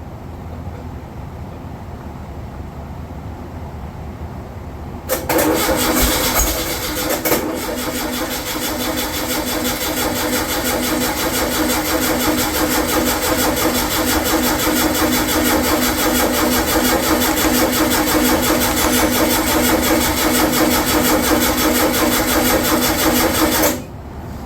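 Starter motor cranking the rebuilt VW 40 hp air-cooled flat-four for about 18 seconds in a steady, even rhythm without the engine catching, then stopping abruptly. The owner later finds the fuel pump was bad and not drawing any fuel.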